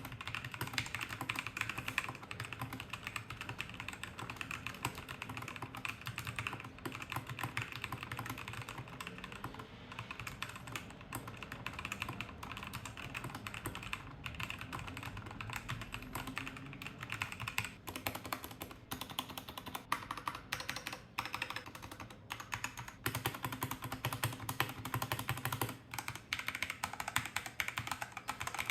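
Typing on a Ziyoulang K68 mechanical keyboard: a fast, continuous run of key clicks with no pauses.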